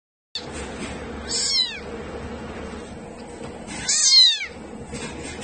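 A very young kitten mewing: two high-pitched mews about two and a half seconds apart, each falling in pitch, the second louder.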